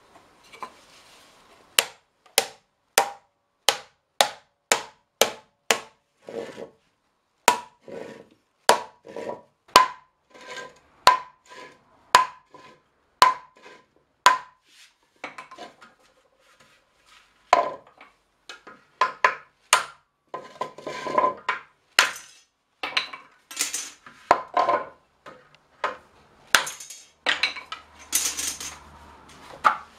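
Hammer blows on a metal hoop driver, driving the steel hoops tight onto a small cherry-wood barrel. Sharp ringing strikes come about two a second, then after a short pause quicker, more irregular knocks follow.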